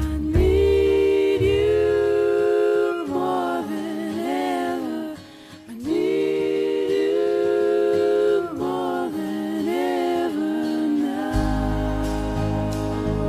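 Background pop song: long, wavering wordless vocal notes over guitar, with a drum beat coming in near the end.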